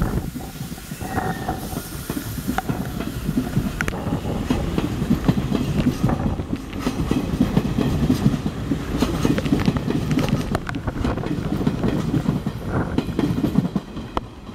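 Electric limited express train pulling out of the station, its wheels clattering over rail joints and points with a steady low rumble and many sharp clicks.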